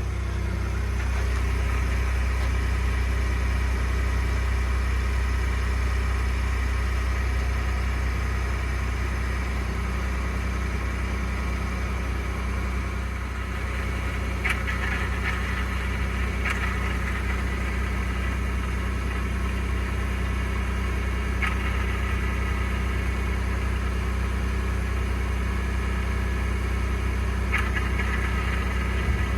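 2021 Ford F-150 PowerBoost's 3.5-litre twin-turbo V6 running steadily at cold idle with a low drone and the cavitating, grinding noise it makes on cold starts, with a few faint ticks. The noise persists even though the dealer replaced the flex plate and separator plate.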